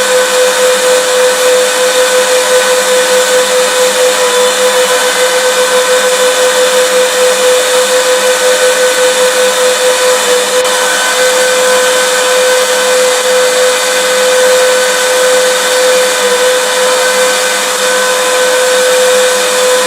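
Vacuum cleaner running steadily as white noise: a continuous motor whine over a rushing hiss, with a slight rhythmic pulsing in level during the first half that smooths out later.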